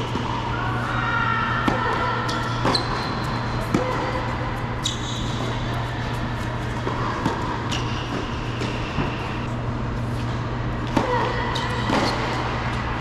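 Tennis ball being struck and bouncing on an indoor hard court during a point, a sharp pop every second or few, with short high squeaks from court shoes. A steady low hum from the indoor hall runs underneath.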